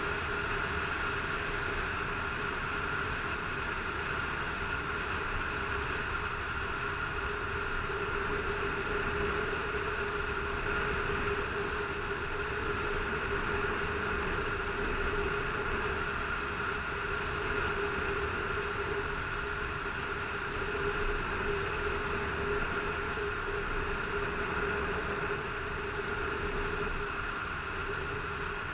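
Motorcycle engine running at a steady cruising speed, an even drone with a constant whine, mixed with wind and road rush, heard from a helmet-mounted GoPro.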